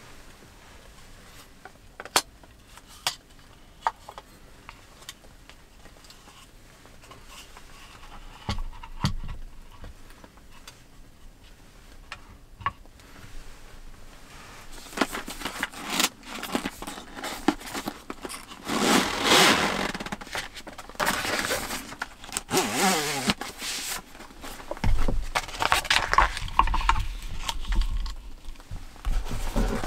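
A few light knocks as a wooden cutting board and a knife are set down on a wooden table, then, about halfway through, loud crinkling and rustling of plastic wrap as a wrapped sheet is handled on the board.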